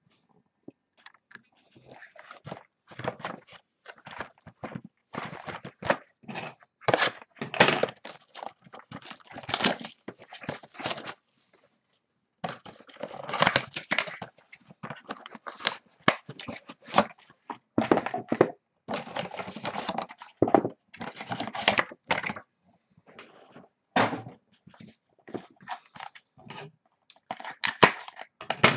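Irregular handling noise of a sealed trading-card box and packs being opened: cardboard thunks and the crackle and tearing of wrapper, in quick uneven bursts.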